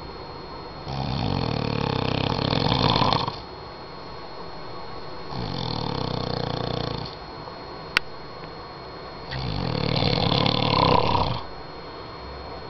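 A man snoring: three snores about four seconds apart, each lasting about two seconds, the first and last growing louder before cutting off and the middle one softer. A single sharp click falls between the second and third snore.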